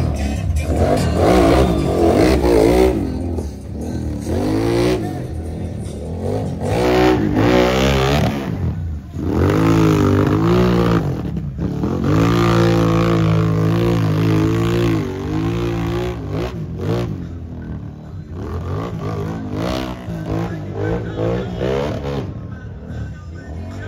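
Big-tire ATV engines revving hard, the pitch rising and falling again and again as the machines claw up and over the obstacles.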